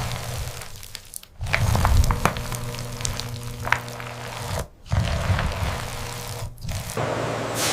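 Production-line machinery running with a steady low hum and scattered short clicks and rattles, cut off abruptly several times.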